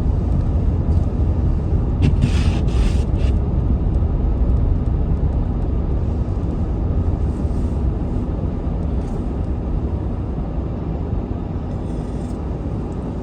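Steady low rumble of a car driving, with a short hiss about two seconds in.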